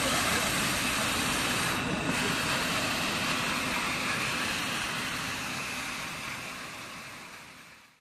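Kärcher BD 50/50 CS walk-behind scrubber-dryer running steadily, its suction motor and scrubbing brush making a constant whirring hiss. The sound fades out over the last couple of seconds.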